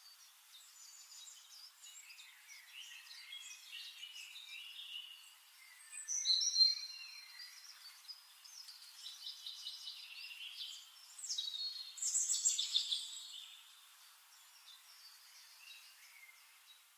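Birds chirping and singing in short, high-pitched phrases and whistles, with louder bursts of song about six seconds in and again about twelve seconds in, fading near the end.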